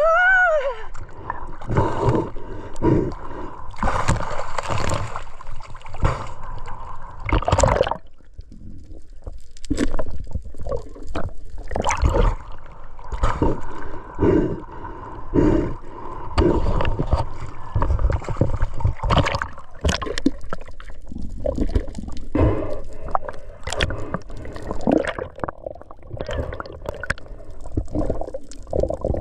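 Sea water sloshing, splashing and gurgling against an action camera as a spearfisher swims at the surface and dives, in irregular bursts with a brief quieter lull about eight seconds in.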